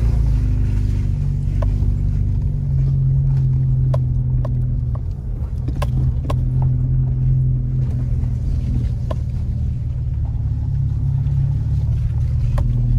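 Cabin sound of a Subaru driving slowly over a rough dirt road with ruts and slush: a steady low engine and tyre rumble, with scattered light knocks and clicks as the car goes over bumps.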